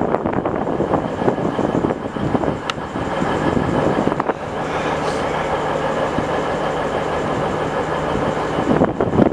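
V/Line diesel multiple-unit train approaching along the track, with a steady rumble and a low, even engine drone that sets in about halfway through.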